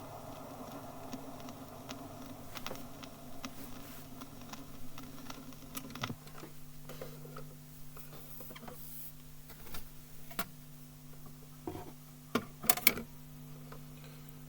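Surface noise from an old sound-archive disc: scattered clicks and crackle over a steady low hum, with a cluster of louder clicks near the end. A faint rushing rumble stops suddenly about six seconds in.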